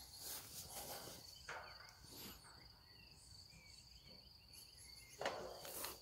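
Faint outdoor background with a steady high chirring of insects, and a brief handling noise about five seconds in.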